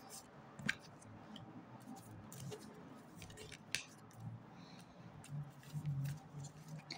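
Tarot cards being handled on the table: a few faint, sharp card clicks and snaps, the clearest about a second in and again near four seconds, over quiet room noise.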